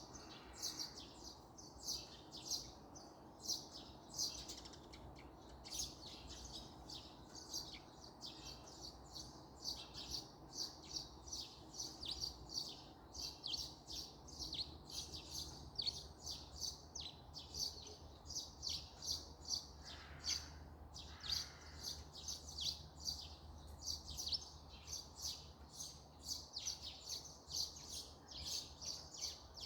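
A morning chorus of small songbirds chirping: a dense, rapid series of short high calls, several birds overlapping. A faint low rumble underneath grows a little stronger about halfway through.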